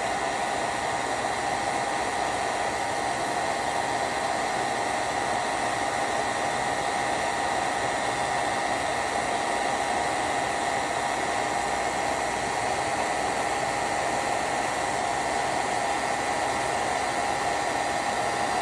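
Handheld hair dryer blowing steadily: a constant rush of air with a faint steady whine, never changing speed.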